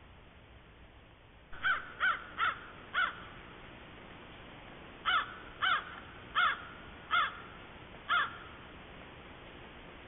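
A crow cawing: nine harsh caws, a quick run of four and then, after a short pause, a slower run of five.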